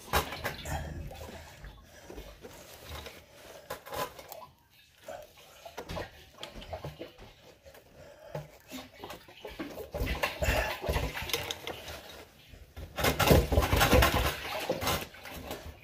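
Plumbing fittings at a well pressure tank being worked by hand: scattered clinks and scrapes, with two louder stretches of rattling and scraping about ten seconds in and again near the end.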